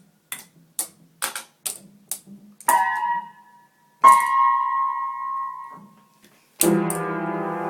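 A piano played by a child: a run of light clicks, then two single high notes, the second louder and left to ring, and near the end a loud cluster of low keys banged at once and left to sound.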